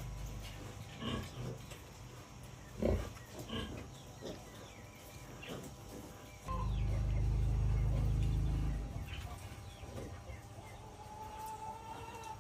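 Pigs, piglets among them, making short, scattered grunts. A steady low rumble runs for about two and a half seconds in the middle.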